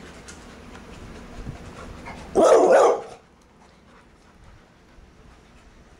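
A dog at play gives one loud bark about two and a half seconds in, lasting about half a second.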